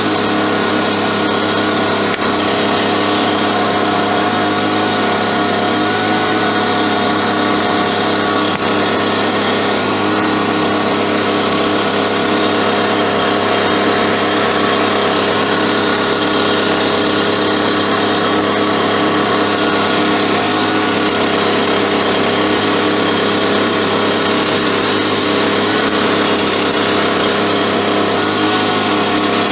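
Small machine motor running steadily at one constant high speed: an even whine over a low hum, with no change in pitch or load.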